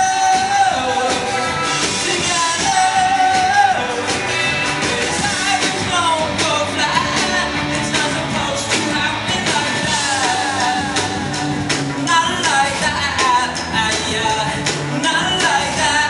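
Live rock band playing: a lead vocal sung over electric guitars, keyboards and drums, heard from the audience floor.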